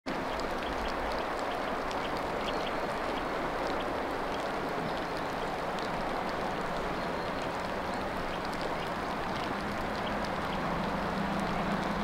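Steady rain falling, with many small scattered drop ticks. A faint low hum comes in near the end.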